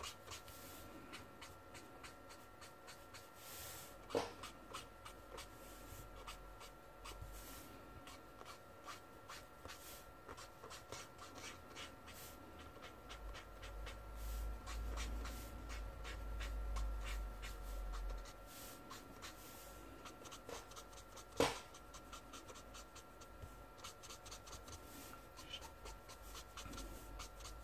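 Brush-tip art marker stroking across toned paper in quick, repeated shading strokes, faint and scratchy. A sharp click comes about four seconds in and a louder one about twenty-one seconds in, over a steady faint high hum.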